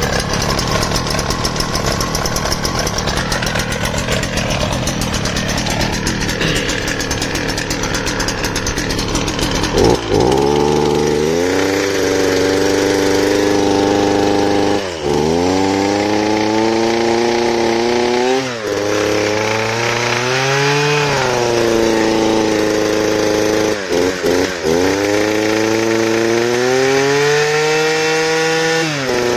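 Stihl FS 260 C brushcutter's two-stroke engine idling, then revved with the throttle from about a third of the way in; its pitch drops sharply and climbs back again several times. The owner reports the engine has no power when the throttle is pressed.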